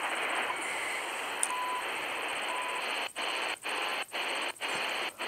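Shortwave static hissing from a Tecsun PL-310ET portable receiver's speaker, with two short beeps. From a little past halfway the hiss drops out for a moment about twice a second as the radio is stepped through frequencies, muting between each step.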